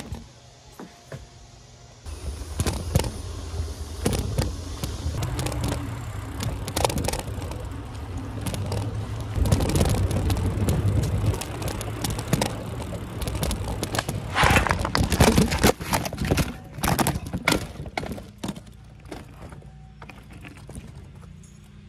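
Riding a Trek Marlin 6 mountain bike: wind rumbling on the microphone with a dense clatter of rattles and knocks from the bike. It picks up about two seconds in, is loudest in the middle and eases off near the end.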